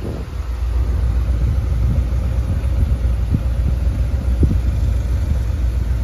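1981 Corvette's 350 V8 idling steadily with a low, even sound through its exhaust with turbo mufflers.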